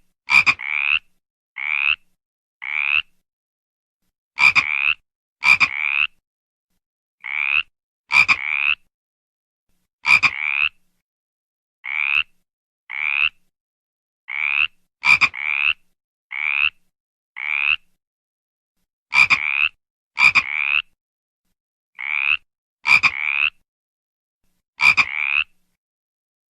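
A frog croaking repeatedly: short croaks of about half a second each, rising slightly in pitch, coming singly or in quick twos and threes with clean silence between them.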